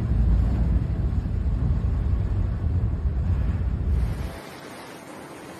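Low, rough rumble of a car driving through deep floodwater, water washing against the body, heard from inside the cabin. About four seconds in it cuts off sharply to a much quieter steady hiss.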